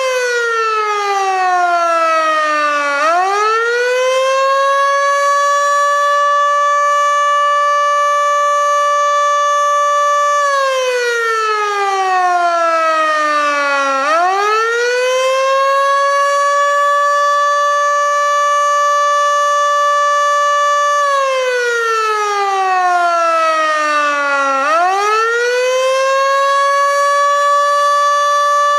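Federal Sign & Signal Model 2 electromechanical warning siren sounding the Attack signal. Three times its tone winds down in pitch over about three seconds, then quickly winds back up to a steady tone held for about six seconds.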